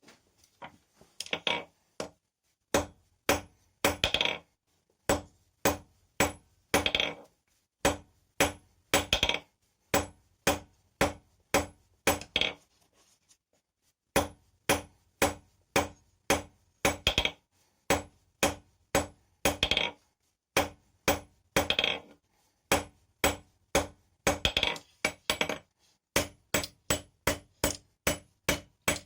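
Hand hammer forging steel on an anvil: runs of ringing blows at about two to three a second, with short pauses between runs.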